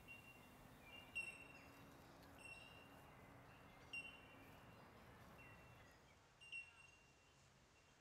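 Faint field ambience: a bird's short, high chirps repeating every second or so over a low steady hiss.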